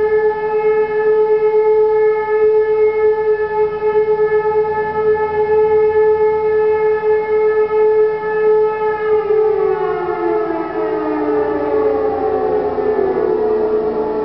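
Civil defence sirens sounding the German all-clear signal (Entwarnung), a long steady tone. About nine seconds in, one siren's pitch starts sliding down as it winds down, while another keeps holding its steady tone.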